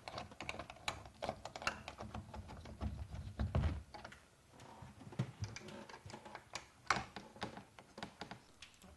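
Irregular small metallic clicks and taps of a hook-and-eye turnbuckle being hooked in and twisted by hand against a painted wooden frame, drawing the booth's wall panels together, with a duller knock about three and a half seconds in and a sharper click near the end.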